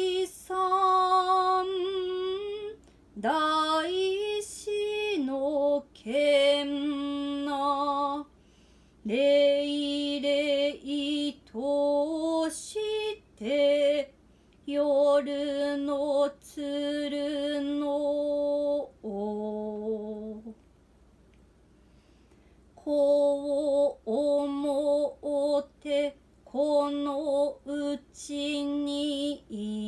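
Su-utai, unaccompanied Noh chant by a single voice: long held notes joined by slides in pitch, broken by short pauses for breath and one longer break about two-thirds of the way through.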